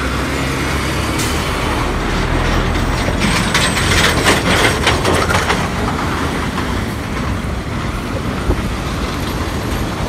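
Heavy trucks and other traffic passing close by on a rough unpaved road, with a deep engine rumble. About three seconds in, a run of rattling clatter joins the rumble for two or three seconds, then the traffic noise settles back.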